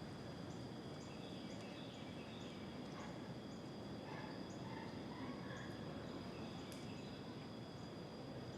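Insects singing: a steady high-pitched drone with short chirps repeating about twice a second. A few scattered bird chirps and a low background rumble lie underneath.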